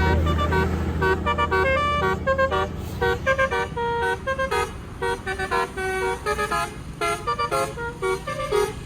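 Indonesian tour bus's 'telolet basuri' musical horn playing a fast tune of short, pitched notes in quick bursts, with a low rumble under the first second or so.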